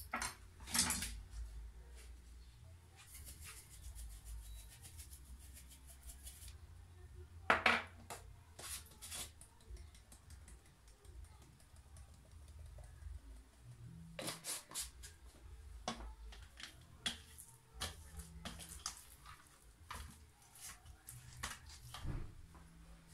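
Kitchen prep handling sounds: scattered clicks and knocks of seasoning containers, utensils and a metal tray of raw meat being handled on a counter. The loudest is a sharp knock about seven seconds in. A low steady hum lies underneath.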